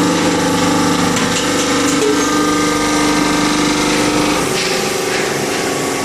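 Hydraulic drum press running: the steady hum and whine of its electric motor and hydraulic pump, with the low rumble dropping and the tone shifting about four and a half seconds in.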